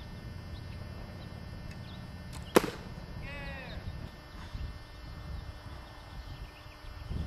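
Wind rumbling on the microphone, with one sharp snap about two and a half seconds in and a brief run of high chirps just after it.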